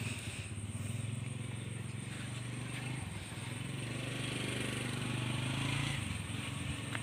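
A steady, low engine hum in the background, over general outdoor noise.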